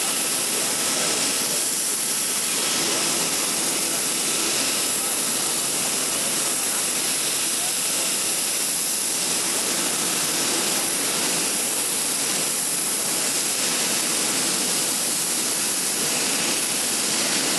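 Airbus A380's four turbofan engines heard as it climbs away after takeoff: a steady, even rushing noise with little deep rumble.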